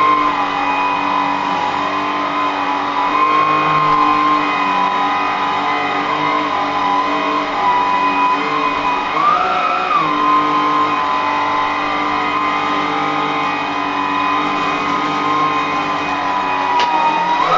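Westinghouse Unplugged cordless bagless vacuum cleaner running with a steady high motor whine. Its pitch rises briefly about halfway through and again near the end, as the narrow airway clogs.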